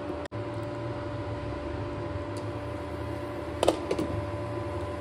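Steady electric hum of a glass-top induction cooktop heating a pan. About three and a half seconds in, a glass pot lid clinks down onto the metal pan with a short ring.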